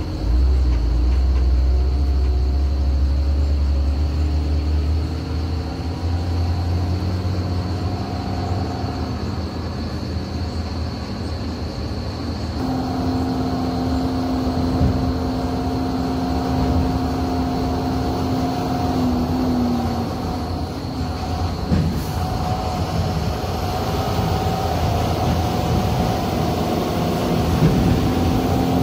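Diesel engines of heavily loaded tipper trucks labouring up a steep hairpin grade: a steady, heavy low drone with held whining tones that change about halfway through, as a truck works its way closer.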